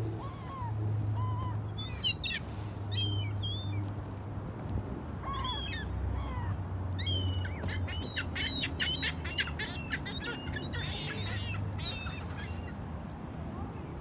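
A flock of ring-billed gulls calling: scattered short, high squawks at first, then a quick run of overlapping calls through the middle of the stretch, over a steady low rumble.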